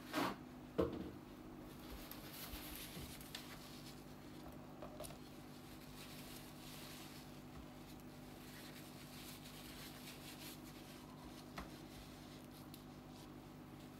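Faint, soft handling sounds of fingers picking spilled batter off a metal muffin tin, over a steady low hum. Two sharp knocks about half a second apart at the very start are the loudest sounds.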